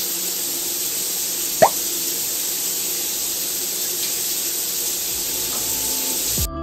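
Water pouring from a square overhead rain shower head: a steady hiss of falling streams, with one short rising chirp about a second and a half in. The water sound cuts off just before the end.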